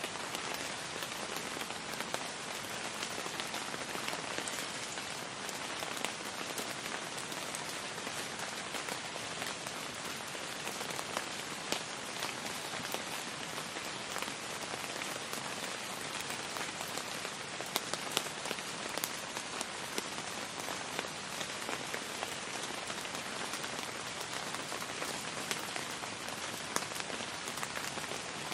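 Steady rain falling on hard surfaces, an even hiss with scattered sharp drop ticks.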